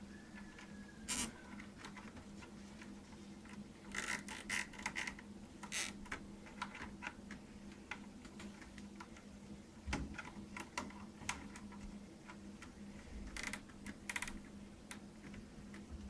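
Hands working inside a desktop PC case: scattered clicks, taps and short scraping rattles of parts and cables being handled, with a cluster of quick clicks about four seconds in, over a faint steady hum.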